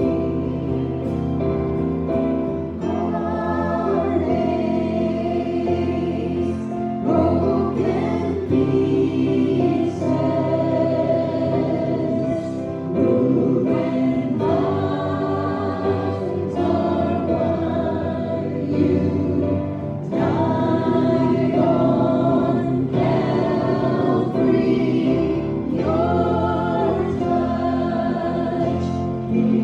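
A group of voices singing a gospel song together with instrumental accompaniment.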